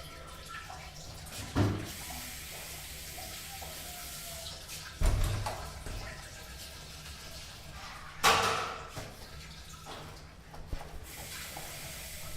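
Public washroom ambience: water running at a sink over a steady background hiss, broken by three sharp thumps about three seconds apart, each dying away within about a second.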